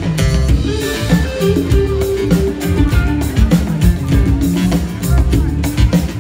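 Live band playing, with acoustic guitars over a steady beat of hand drums and drum kit.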